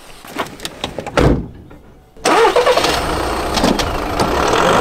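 A few handling clicks and a thump, then a Volkswagen van's engine starting and running steadily.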